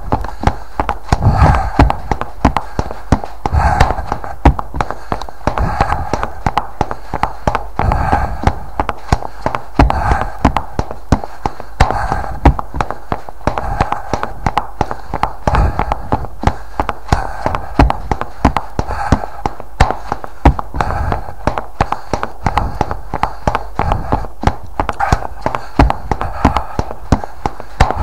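A person running: heavy breathing that swells in a regular rhythm about once every two seconds, over a fast run of footfalls.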